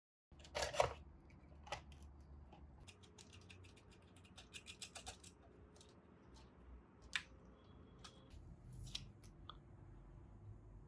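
Irregular small clicks, snaps and scratches over a faint low hum, with a loud cluster of clicks about a second in and a quick run of ticks a few seconds later.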